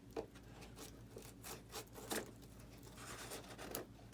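Faint scraping and rubbing with scattered light clicks, hands working the foam and plastic parts of an RC jet loose where factory glue holds them.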